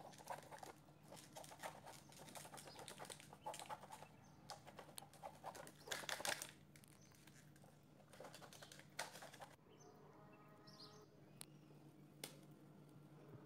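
A bar of chocolate being rubbed by hand against a grater: a run of faint, quick scraping strokes with some paper rustle, loudest about six seconds in. The scraping stops well before the end, leaving only a few light ticks.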